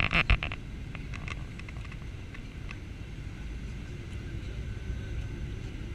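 Steady low cabin rumble of a Boeing 737-800 in flight on approach, its engines and airflow heard from a window seat. A few sharp knocks sound in the first half second.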